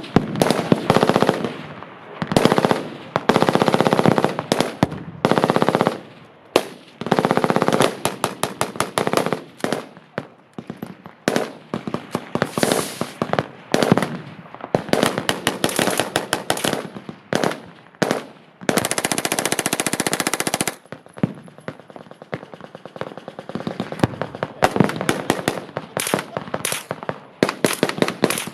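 Machine guns firing bursts of automatic fire, one after another with hardly a gap, including one unbroken burst of about two seconds about two-thirds of the way in.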